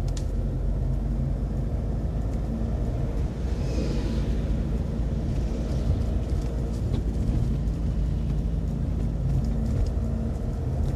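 Steady low rumble of a car's engine and tyres heard from inside the cabin while driving in city traffic.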